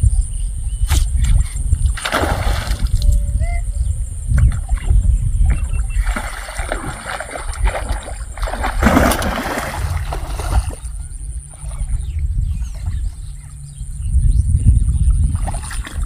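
Water splashing in three bursts, about two, six and nine seconds in, as a hooked rohu thrashes at the surface of shallow weedy water during the fight, over a steady low rumble.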